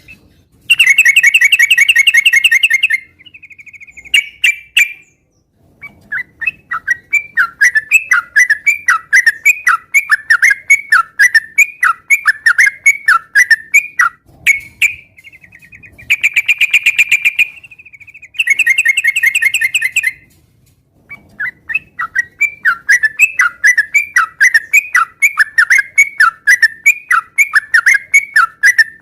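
Yellow-vented bulbul singing vigorously: long runs of short, repeated, down-slurred whistled notes, about two a second. These are broken three times by loud, dense buzzy trills lasting two to three seconds each.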